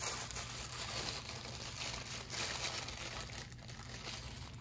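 Tissue paper crinkling and rustling in irregular spurts as it is unfolded by hand from around a Bakelite hand guard.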